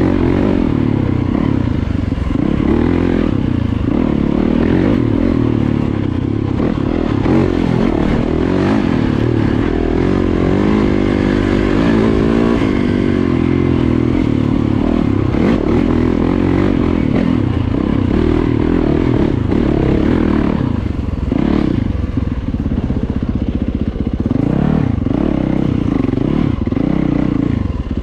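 Yamaha dirt bike engine running under way, its revs rising and falling with the throttle, with some rattle and clatter from the bike on the rough trail.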